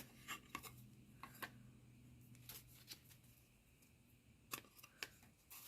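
Near silence with a few faint, scattered clicks and taps: small MDF diamond-painting coasters being handled and set down.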